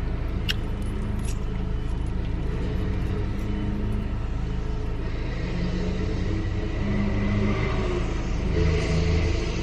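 Car engine idling steadily, with two light clicks about half a second and just over a second in, and a rise in hiss near the end.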